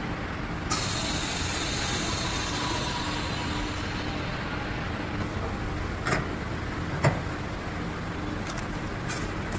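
Chamber vacuum-sealing machine running with a steady hum. About a second in, a sudden hiss of air starts and slowly tapers off, and two sharp clacks follow later.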